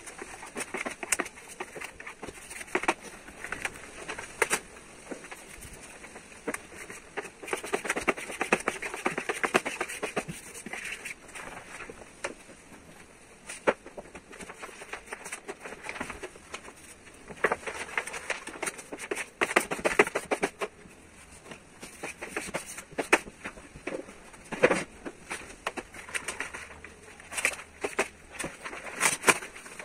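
Sheet of carbon-fibre vinyl wrap film crackling and rustling as it is handled, peeled from its backing paper and laid over a car roof, with irregular sharp crinkles and clicks throughout.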